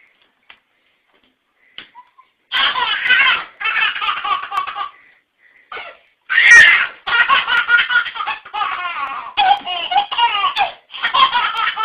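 A baby belly-laughing in a run of long, repeated fits that begins about two and a half seconds in after a quiet start, loudest around the middle.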